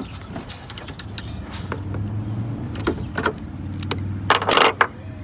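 Scattered clicks and clinks of a socket ratchet being handled around a car's headlight mounting bolts, with a short scraping rustle about four seconds in, over a steady low hum.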